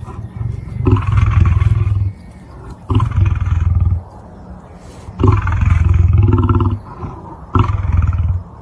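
Lion roaring: four long, loud roars of about a second to a second and a half each, with short pauses between them.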